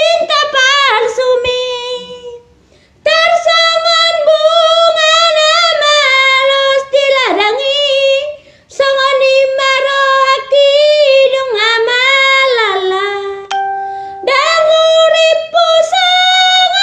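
A woman singing solo with no accompaniment, loud and high, holding long notes with a wavering vibrato in several phrases broken by short breaths.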